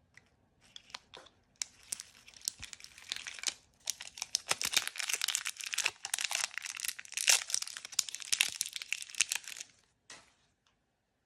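Packaging being torn open and crinkled by hand: a long run of dense crinkling with sharp rips and crackles, busiest in the middle, then stopping just before the end with a few last rustles.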